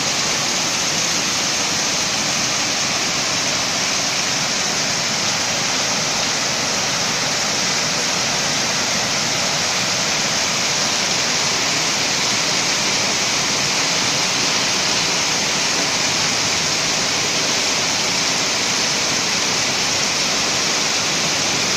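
Torrential rain pouring down in a steady, unbroken rush, falling on roofs and paving, with rainwater running down the steps.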